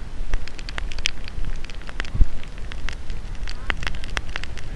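Rain striking the camera's microphone in irregular sharp ticks and crackles, over a low rumble of wind on the microphone.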